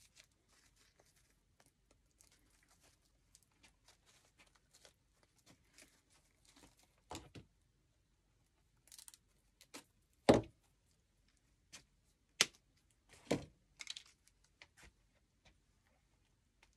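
Scattered rustling, crinkling and short knocks of artificial flowers and craft materials being handled on a worktable, with a few sharper knocks, the loudest about ten seconds in.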